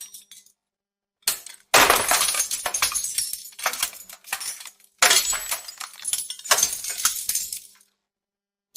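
Falling building debris crashing down twice: each fall opens with a sudden crash of breaking material and trails off over about three seconds into clattering, scattering fragments. A single short knock comes just before the first crash.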